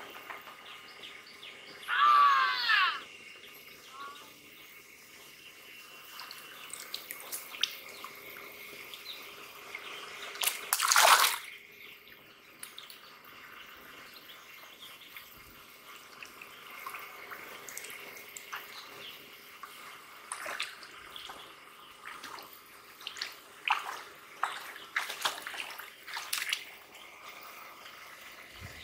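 Hands splashing and sloshing in shallow muddy water while groping for and grabbing a fish, with one loud splash about eleven seconds in and smaller splashes near the end. A short high-pitched call sounds about two seconds in.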